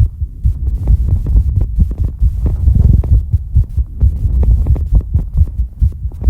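Fast human heartbeat after exercise: a quick, continuous run of low, deep thumps.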